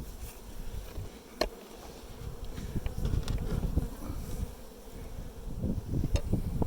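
Honeybees buzzing around an opened hive in a steady hum, with a couple of sharp knocks, one about a second and a half in and one near the end, as the wooden hive boxes are put back together.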